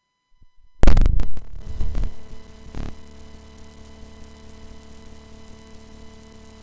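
A sudden loud thump about a second in, followed by a steady hum with a few held tones.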